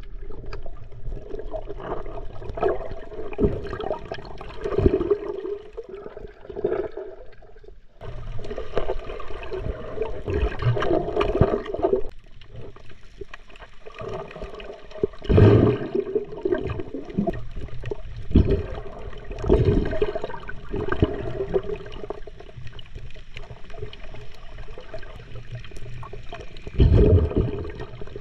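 Muffled underwater water noise from a submerged camera: gurgling and sloshing with irregular louder rushes, like bubbles or water churning past the housing.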